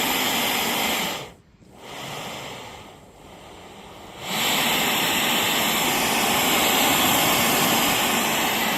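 Portable butane-propane gas stove burner running at full flame with a loud, steady hiss. About a second in it is turned down almost to nothing, then turned back up to full about four seconds in.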